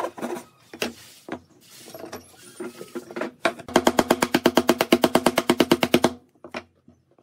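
Hand tools working a pine board: the last stroke of a hand saw, a few scattered knocks, then, about halfway through, a wood chisel pressed into the saw cut, giving a rapid, even chatter of about a dozen pulses a second for a couple of seconds.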